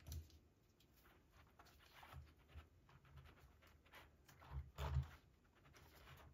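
Near silence with faint clicks and taps of hands handling a small plastic RC truck chassis and its wiring. There is a pair of soft bumps about four and a half to five seconds in.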